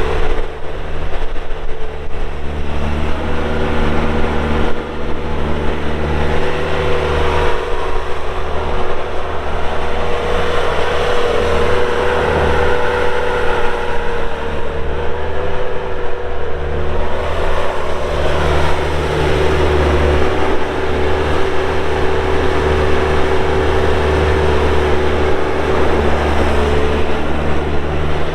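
Bobcat A300 skid steer loader's Kubota diesel engine running steadily under operation, with a steady whine whose pitch wavers slightly.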